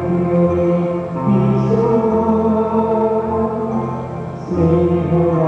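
Voices singing a slow church hymn over sustained instrumental accompaniment. The long held notes move to new pitches about a second in and again near the end.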